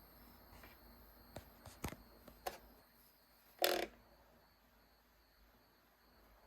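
Standing desk (model CPT007-V2-BK) making its unexplained chirping noise: a few faint clicks in the first couple of seconds, then one short, louder chirp about three and a half seconds in.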